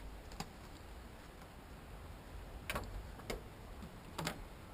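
A few faint, irregularly spaced clicks and taps over a low rumble.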